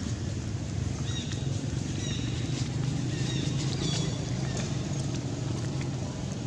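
Steady low hum of a running engine, with short high chirps scattered over it.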